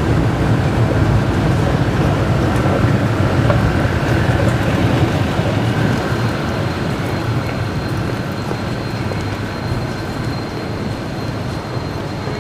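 Steady rumbling ambience of an underground MRT station concourse. It eases slightly about halfway through, when a thin, high steady tone comes in.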